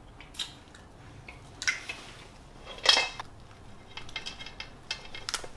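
Cooked rock crab's shell being cracked and pried apart by hand: a few sharp cracks, the loudest about three seconds in, then a run of small crackles near the end.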